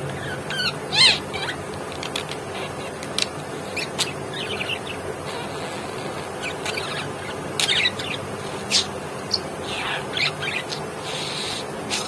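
Pet budgerigar chattering softly: scattered short chirps, clicks and warbles, with a few louder chirps here and there.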